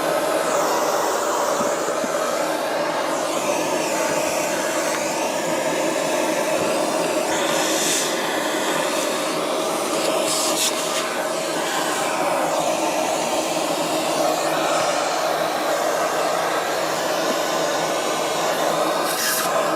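Vacuum cleaner running steadily while sucking dust from under a refrigerator, its pitch shifting now and then as the nozzle is moved.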